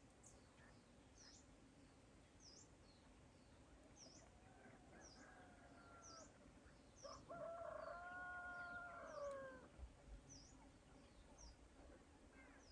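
A rooster crowing twice, faintly: a softer crow about four and a half seconds in and a louder, longer one a couple of seconds later that slides down at its end. Behind it a small bird gives short high chirps about once a second.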